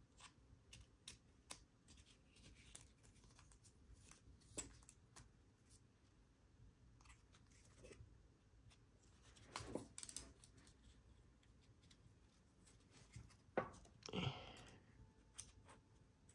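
Near silence with faint clicks and light handling noises, as of packaging and a watch band being handled. Louder brief scrapes and knocks come about ten seconds in and again near the end.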